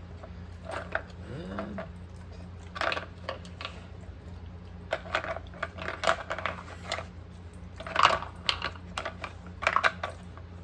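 Plastic bone-shaped lids and tray of an Outward Hound Nina Ottosson dog treat puzzle clicking and clattering as a dog noses and flips the lids on a wooden floor. The clicks come in several short clusters, the loudest about eight seconds in.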